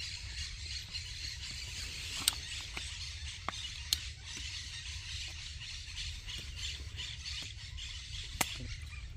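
Outdoor lakeshore ambience: distant birds over a steady hiss, with a low rumble underneath. A few sharp clicks come about two to four seconds in and again near the end.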